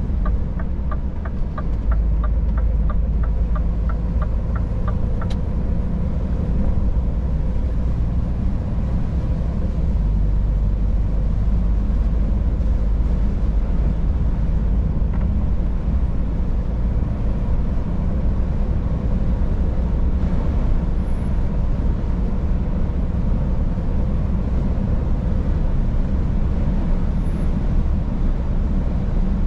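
Scania S500 truck's engine and road noise heard from the cab while driving, a steady low rumble. A quick run of light high ticks at the start stops about five seconds in.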